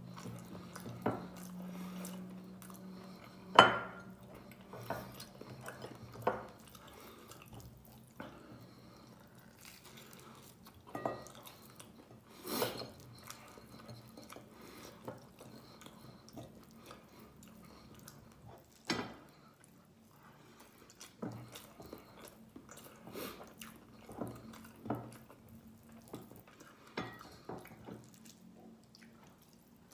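Eating rice by hand from a glass bowl: scattered small clicks and clinks against the glass, with chewing between them; the sharpest click comes about three and a half seconds in. A faint steady low hum runs underneath.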